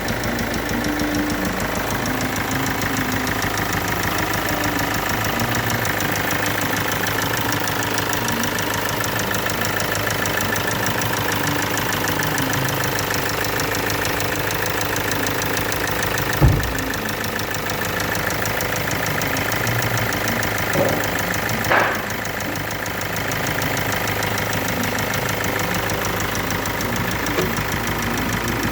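Kia Sportage 2.0 CRDi common-rail diesel engine running steadily at idle with a fast, even ticking from failing hydraulic tappets (valve lifters). A louder thump comes about halfway through, and two shorter knocks a few seconds later.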